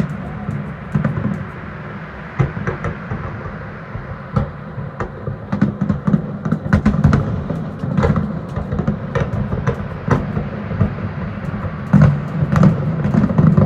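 A fireworks display going off in rapid succession: many sharp bangs and crackles over a continuous low rumble, thickest about twelve seconds in.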